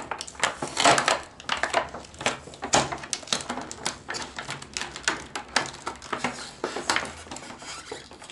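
Stiff clear plastic blister packaging crackling and clicking irregularly as it is handled and a cardboard card taped to its back is pulled free.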